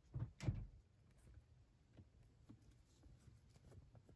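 Two soft bumps in the first half-second, then faint scattered light ticks and rustling in a quiet room.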